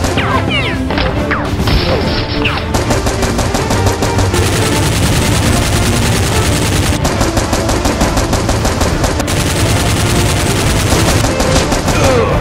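Rapid automatic gunfire sound effects, a continuous stream of shots, dubbed over the blaster action with background music underneath.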